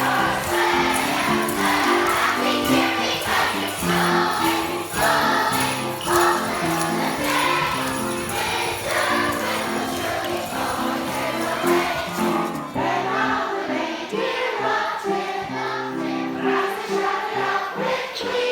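Christmas music with jingle bells shaking and a choir singing. The jingling drops out about two-thirds of the way through, and the singing and music carry on.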